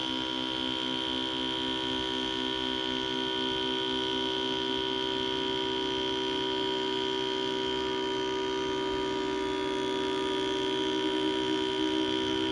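5U modular synthesizer playing a steady electronic drone of several held tones, with a high tone standing out. A low note pulses about twice a second through the first part. A slightly higher pulsing note comes in near the end.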